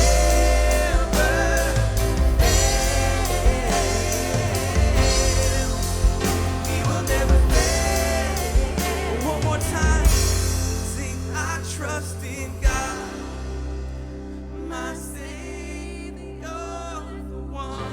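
Live worship band playing a gospel song, with voices singing over drums, bass, keys and guitar. About two-thirds of the way through, the drums drop out and the music falls quieter to held chords with softer singing.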